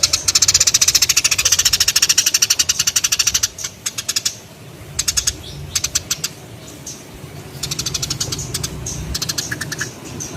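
Sparrows chattering in fast rattling runs of high chirps. The runs are densest and loudest for the first three and a half seconds, then come in shorter bursts.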